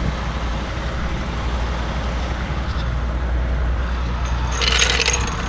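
Steady rumble of highway traffic going past. A brief clatter of metal, like tools or keys, comes near the end.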